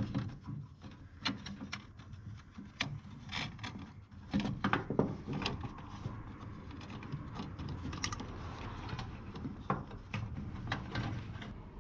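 Hands working a car's dash instrument panel and its wiring back into place: irregular clicks, taps and rubbing of small parts.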